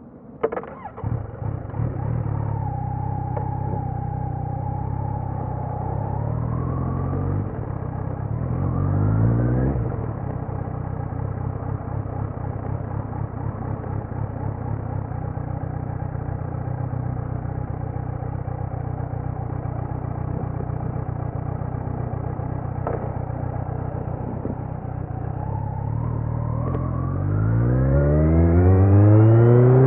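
2018 Kawasaki Z900's inline-four through a Leo Vince muffler on stock headers with no dB killer. It starts suddenly about half a second in and settles to a steady idle, with one short rev around eight seconds. Over the last four seconds the revs climb and it gets louder.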